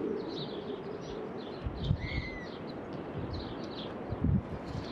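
Small birds chirping repeatedly, with one longer slurred note about two seconds in, over a steady outdoor background rush. Two dull thumps, the loudest sounds, come about two seconds in and just after four seconds.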